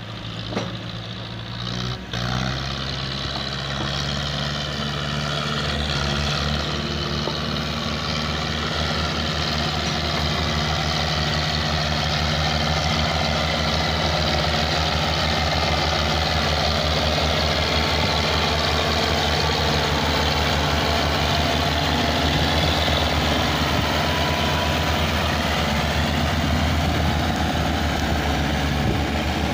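Diesel engines of Belarus tractors running hard under heavy load, hauling a log-laden trailer through sand. It is a steady low engine drone that grows louder over the first several seconds and then holds.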